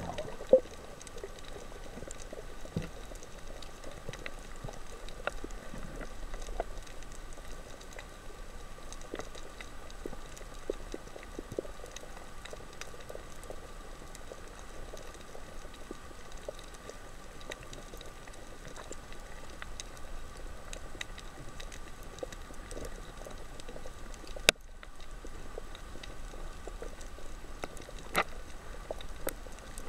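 Underwater reef ambience through the camera's housing: a steady crackle of fine clicks over a faint steady hum. A sharp click comes about 24 seconds in, with a brief drop in sound just after it, and another click near the end.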